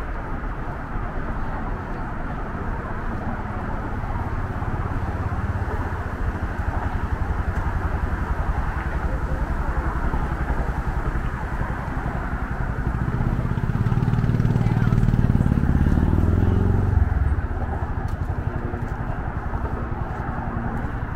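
Steady hum of road traffic, with one motor vehicle's engine rising in pitch and growing louder as it accelerates, loudest a little past the middle, then falling away.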